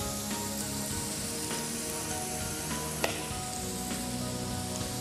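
Cubed beetroot sizzling steadily in oil in a frying pan, with a single sharp knock about three seconds in.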